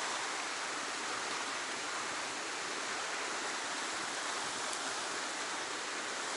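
Fast-flowing stream current rushing steadily.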